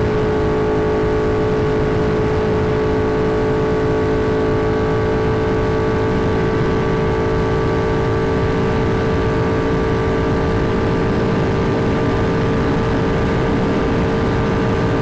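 Triumph Thruxton R's 1200 cc parallel-twin engine through Meerkat racing mufflers, running under steady throttle at an unchanging pitch, with a heavy low rumble of wind across the microphone.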